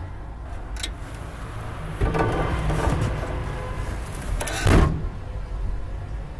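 A low steady hum with a few sudden noises: a short rush about two seconds in, then, a little before five seconds in, the loudest sound, a slam of a car's raised rear hatch being pulled down shut.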